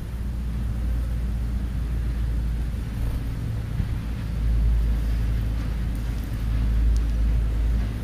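Low rumble of a motor vehicle's engine, swelling twice in the second half.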